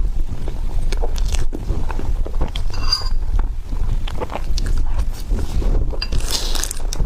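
Close-miked chewing and mouth sounds of someone eating tiger skin dessert: many small irregular wet clicks, with a brief hiss near the end.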